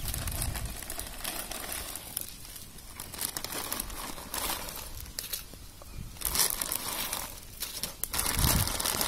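A plastic bag crinkling in bouts as bundles of dried noodles are pulled out of it, loudest a little after six seconds in and near the end.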